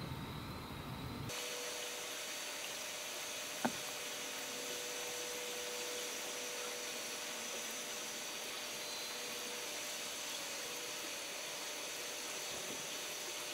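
A steady whirring hiss with a faint low hum and faint high whining tones, broken once by a sharp click about three and a half seconds in.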